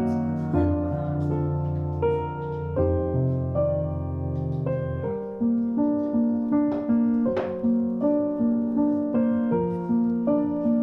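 Background piano music: low held notes at first, then an even run of repeated notes from about halfway through.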